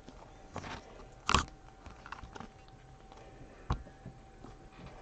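Baseball trading cards and foil pack wrappers being handled: a few short rustles and crinkles, the loudest just over a second in, and a sharp tap near four seconds.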